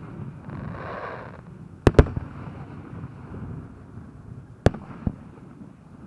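Aerial fireworks shells bursting: a sharp double bang about two seconds in, another bang about two-thirds of the way through with a softer one just after, and a brief hiss about a second in, over a low rumble.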